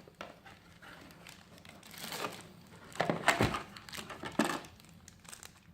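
Plastic packaging crinkling and rustling in bursts as small accessories are unwrapped and handled, loudest about three seconds in, with a dull bump there.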